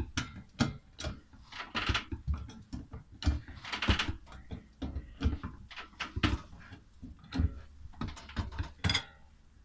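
Rubber SASIC anti-roll bar (stabilizer) bushings squeaking as the suspension works, a string of irregular creaks about two a second, like an old cart. The rubber bushings squeak against the stabilizer bar, worst in dry hot weather.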